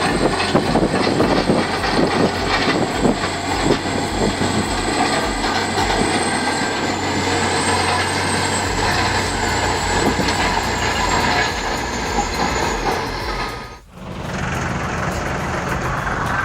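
Large track-type bulldozer (Caterpillar D10) running hard, diesel engine under load with a steady high whine above it. The sound cuts off abruptly near the end and a different heavy-machine noise follows.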